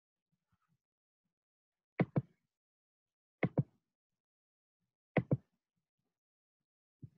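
Sharp knocks in pairs, a double knock about every second and a half, three times, then a lighter single knock near the end.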